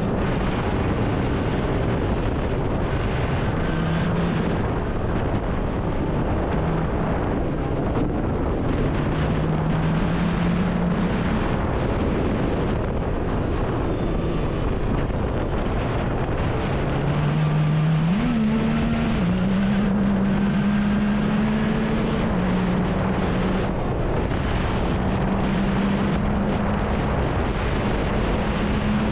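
Yamaha YXZ1000R side-by-side running hard on a dirt track, its engine note rising and falling as it speeds up and slows, with a quick jump in pitch about two-thirds of the way through. A constant rush of wind and track noise runs underneath.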